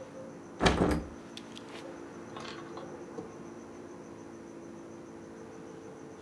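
A single heavy thump about half a second in, then a few light clicks, over a steady low hum.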